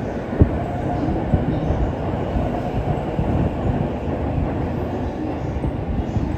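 Electric commuter train running along the tracks below: a steady rumble of wheels on rails, broken by scattered knocks, the sharpest about half a second in.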